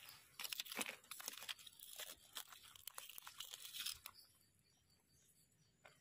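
A knife crunching and scraping through stony soil and dry leaf litter as a large wild mushroom is dug out, a dense crackling for about four seconds. Near the end it falls to a few faint scrapes.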